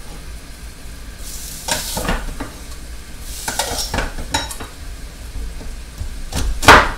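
Onions frying in a pan of hot oil on the stove, sizzling, with two short surges of louder hissing and light clinks of the pan and its lid. A loud knock near the end.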